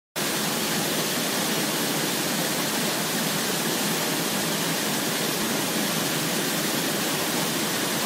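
Waterfall pouring into a rocky plunge pool: a steady, even rush of falling water.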